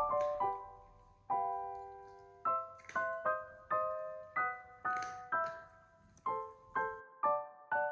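Background music: a gentle piano melody of single struck notes, each fading away.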